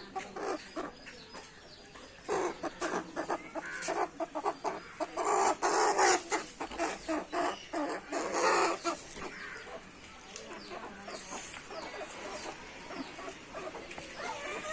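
Aseel chickens clucking in a run of short, rapid calls, loudest a few seconds in, quieter from about nine seconds on.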